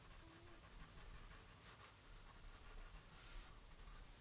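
Faint scratching of a Prismacolor colored pencil on paper, laying down short, irregular hatching strokes.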